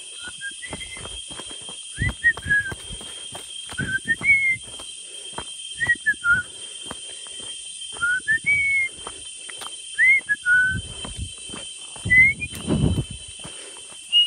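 Short whistled phrases of two or three sliding notes, repeated about every two seconds, over a steady high-pitched drone of forest insects, with footsteps on a dirt trail.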